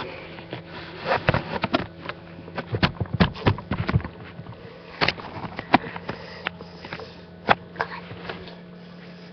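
Close handling noise on a webcam's microphone: irregular clicks, knocks and rustles, packed densely in the first few seconds and then scattered, over a steady low electrical hum.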